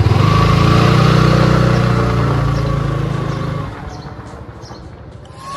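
Motorcycle engine running hard just after being revved up, then fading away after about three and a half seconds.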